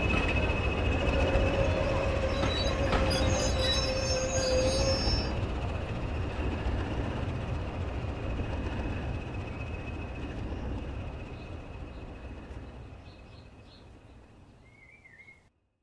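OO gauge model train running on the layout's track, the wheels and motor giving a low rumble with a steady high whine over it. The sound fades steadily as the train moves away, then cuts off suddenly just before the end.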